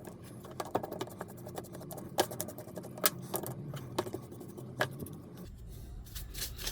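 Small paintbrush brushing dust out of an opened electric screwdriver's housing: irregular scratchy strokes with sharp clicks, stopping about a second before the end.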